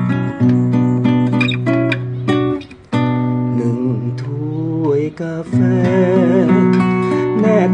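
Acoustic guitar being fingerpicked, a melody over steady bass notes, with a short break a little under three seconds in. About halfway through, a man begins singing over the guitar.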